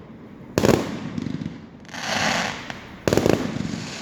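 Fireworks going off: a sharp burst of rapid crackling about half a second in, a hissing whoosh around two seconds in, and a second crackling burst about three seconds in, each fading away.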